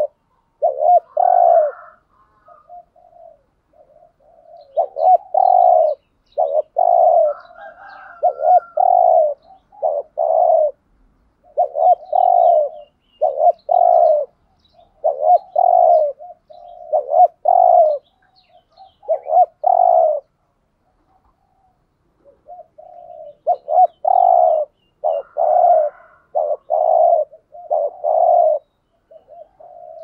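Spotted dove cooing in repeated phrases of low coos, with a short break about two-thirds of the way through. Faint chirps of small birds sound in the background.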